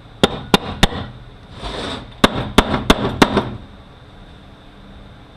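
Hammer blows on metal, knocking a part out of a Ford 1356 transfer case: three sharp strikes, a brief scraping shuffle, then four more strikes in quick succession.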